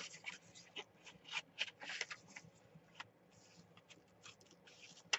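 Small scissors cutting through a sheet of printer paper: a quiet string of short, irregular snips and paper rustles, several a second.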